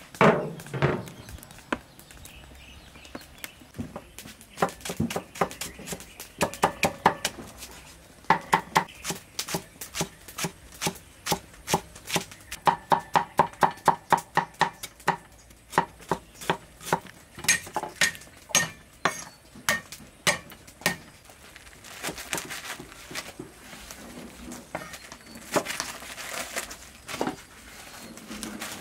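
A metal wok lid set down with a clank at the start, then a steel cleaver chopping on a thick wooden chopping block in quick runs of about four strokes a second. Near the end the strokes give way to softer rustling and handling noise.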